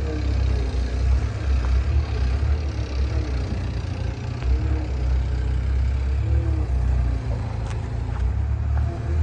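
Skid steer loader's engine running with a steady low drone, its pitch wavering slightly.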